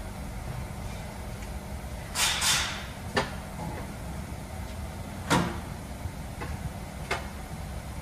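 Repair-shop background: a steady low hum with a few sharp knocks and clanks, and a short rasping scrape about two seconds in.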